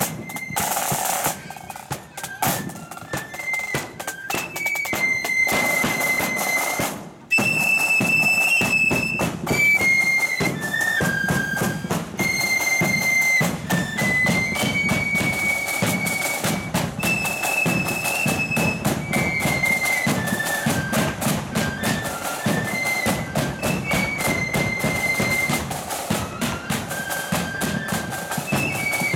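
A marching flute band playing a tune in unison on flutes, with side drums and a bass drum beating time. A side-drum roll leads in and the flutes take up the melody about two seconds in.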